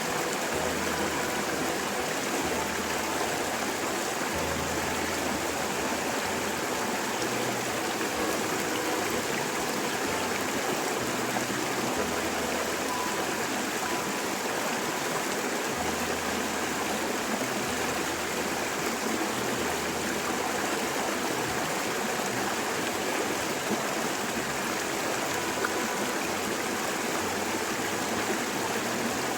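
Steady rushing of water, like a stream, unbroken and unchanging throughout.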